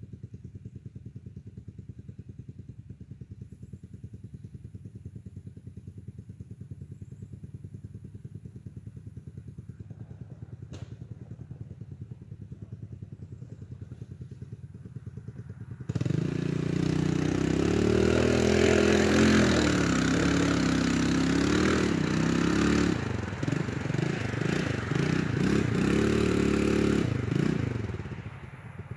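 Quad ATV engine idling with a steady, rapid low putter. About halfway through it revs up loud, pitch rising and falling as the quad is ridden off, then settles back to idle near the end.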